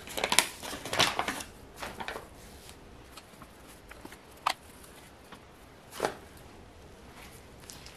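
Flour bag rustling as flour is poured from it onto a plate, in dense bursts over the first two seconds. A few single light rustles or taps follow, the clearest about four and a half and six seconds in.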